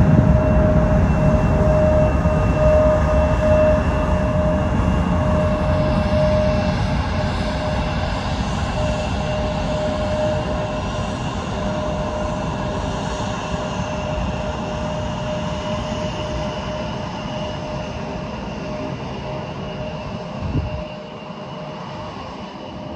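An airliner's engines rumbling with a steady high whine over the top, slowly fading as the aircraft moves away from the runway side.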